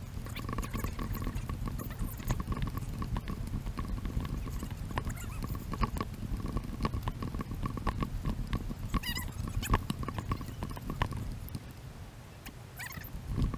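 Quick, rhythmic footsteps crunching on a dirt trail, sped up, over a steady low rumble of wind and handling on a carried camera. There is a lull about twelve seconds in.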